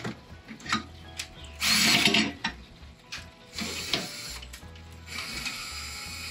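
Ryobi cordless drill spinning a paint-mixing paddle in the kettle to whirlpool the hot wort, running in short runs with the loudest about two seconds in, with clicks between the runs.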